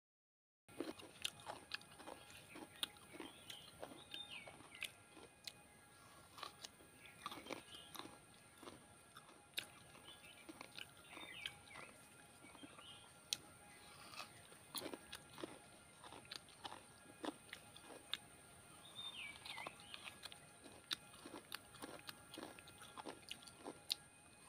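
Close-up crunching and chewing of coconut flesh: irregular crisp bites and chewing.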